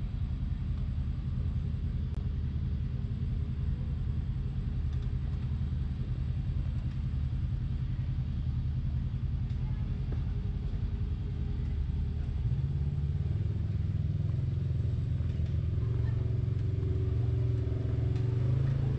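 Side-by-side UTV engine running at low revs, a steady low rumble that grows somewhat louder from about twelve seconds in as the machine crawls up the rocky trail.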